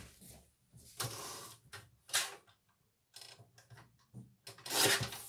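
Intermittent rustling and clunks of paper and craft tools being handled, with the loudest at about the five-second mark.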